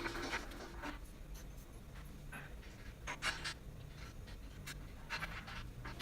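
Faint, intermittent scraping and rattling of small hardware and tools being handled while a steel motorcycle dolly is bolted together, with three or so short bursts.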